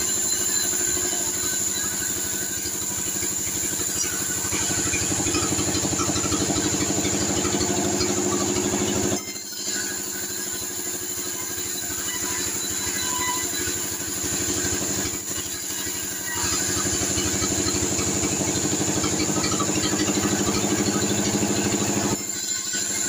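T 36 vertical band sawmill running and sawing a sengon (albizia) beam as it is fed through the blade, a steady machine drone with the hiss of the cut. The sound dips briefly about nine seconds in and again around fifteen seconds.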